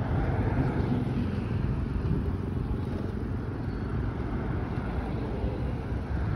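Steady low rumble of wind and road traffic, picked up from a bicycle in motion, easing slightly toward the end.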